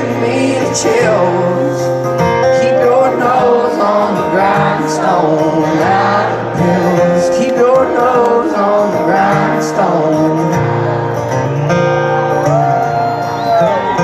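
Live country band playing an instrumental passage, sliding melodic lines over steady bass notes.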